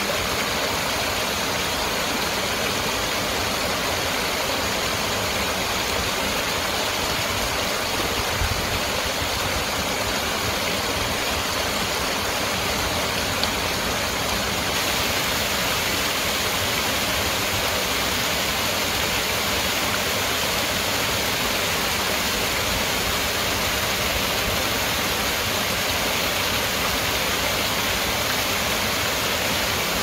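Small stream waterfall cascading over rocks into a pool: a steady, full rush of splashing water that grows a little hissier about halfway through.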